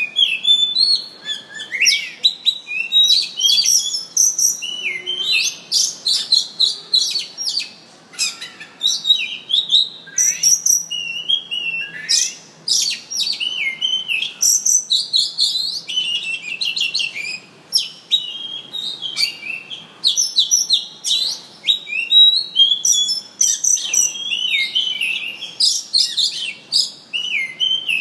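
A songbird known in Malay as murai cacing singing a loud, continuous, varied song of quick whistled notes, slides and trills, with only brief pauses.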